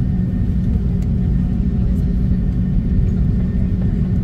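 Steady low rumble with a constant hum inside the cabin of an Airbus A330 rolling on the ground, from its Rolls-Royce Trent 700 jet engines and the aircraft moving over the pavement.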